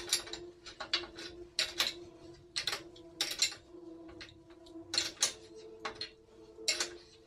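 Irregular metal clinks and clicks of pulley hardware being handled and fitted on the low pulley bracket at the foot of a steel power rack, over a faint steady hum.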